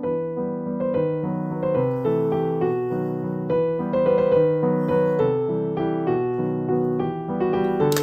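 Background piano music, a gentle melody of single notes over changing chords.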